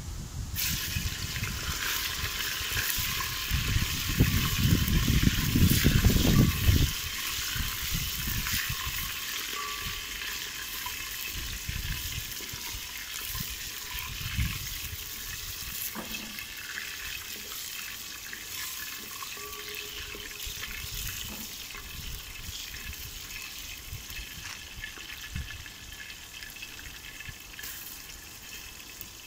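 Raw meat sizzling in hot sunflower oil in a cast-iron pot: a steady frying hiss starts about half a second in, as the meat goes in, and slowly fades as the oil cools. A low rumble comes over it for the first seven seconds or so.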